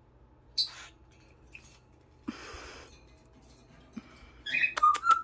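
Small pet parrots chirping and clicking: a few scattered scratchy sounds, then a quick run of sharp clicks and short high chirps near the end.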